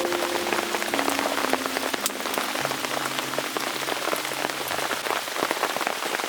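Heavy rain falling steadily, a dense hiss of countless drops striking close by.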